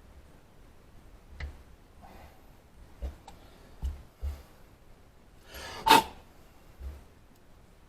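Scattered light clicks and knocks of metal hand tools being handled during a Heli-coil thread repair, with one louder clatter about six seconds in.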